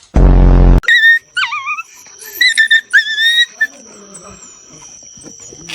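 A loud, harsh buzz lasting well under a second, then a dog's high-pitched whines that rise and fall for a couple of seconds.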